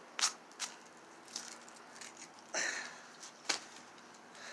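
Small metal finds being pulled off a magnet-fishing magnet and handled with gloved hands: a handful of sharp metallic clicks and one short scrape about two and a half seconds in.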